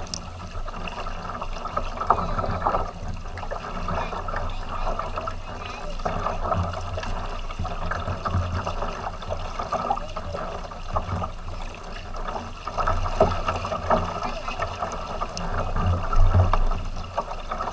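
Water rushing and lapping along the hull of a tandem sea kayak being paddled, with paddle blades dipping, heard close to the waterline along with a low rumble; it gets louder near the end.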